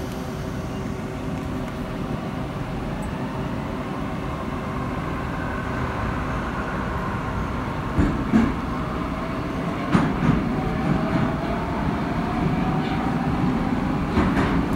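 Metro train pulling away from the station and accelerating into the tunnel, heard from inside the carriage. A steady rumble and hum grows louder while the traction motors' whine rises in pitch. Wheels knock over rail joints a few times from about halfway on.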